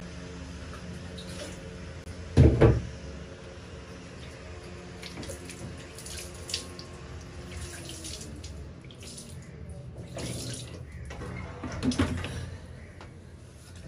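Water splashing and pouring onto a concrete floor as a man washes his face and hands with a plastic mug dipped into a bucket. Two louder splashes come about two and a half seconds in and near the end.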